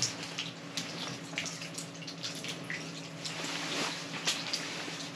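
Irregular small drips and splashes of water at an open ice-fishing hole as fishing line is worked in and out of it, over a steady low hum.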